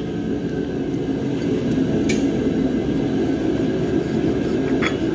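Steady low background noise with no clear pitch, with two faint light clicks, one about two seconds in and one near the end.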